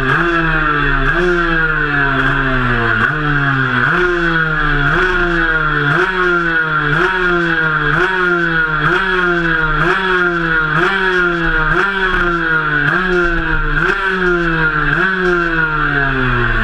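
Cagiva Mito 125's two-stroke single-cylinder engine running while riding at low speed, its note jumping up and then sagging back again about once a second.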